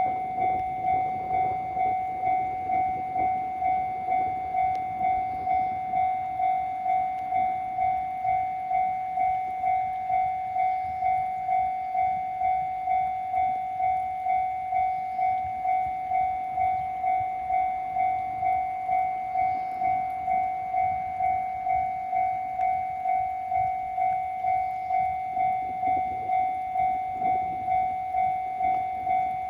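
Japanese level-crossing warning bell on the JR Tohoku Line ringing its steady electronic 'kan-kan', about one and a half strokes a second. A low rumble rises and fades near the start and builds again near the end.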